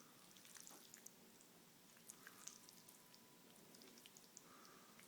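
Spaghetti being squeezed and kneaded by hand: faint, irregular wet squelching clicks.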